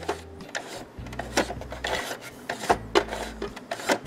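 Brother SQ9185 computerized sewing machine being turned slowly by its handwheel for a zigzag button stitch: irregular clicks and rubbing from the needle bar and mechanism, with a low hum that comes and goes in stretches.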